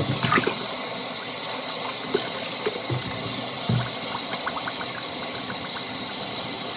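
Water running from a tap, filling an old glass bottle, with a few light knocks of the glass.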